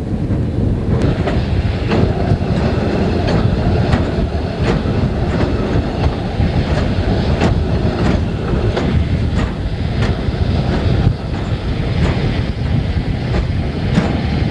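Canadian Pacific hi-rail truck running along the track: a steady rumble with regular clicks of its rail wheels crossing rail joints, about three every two seconds.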